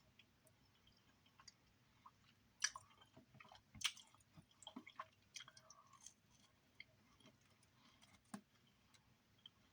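Faint chewing and mouth sounds of a person eating, with scattered small clicks and smacks; the loudest come about two and a half and four seconds in, and again near the end.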